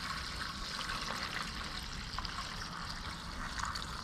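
Gasoline pouring in a steady trickle from a gas can's spout into the fuel tank of a Generac GP6500 portable generator.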